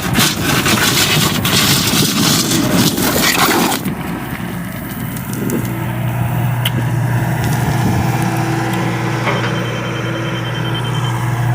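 John Deere excavator working: loud clattering and scraping for about the first four seconds, then the engine settling into a steady drone.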